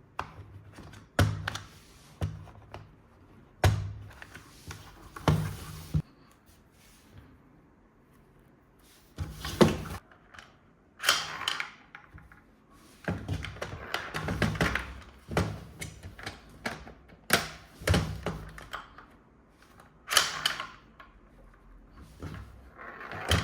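Plastic toy pieces and packaging being handled: irregular knocks and clatters every second or two, with stretches of rustling and rattling in between.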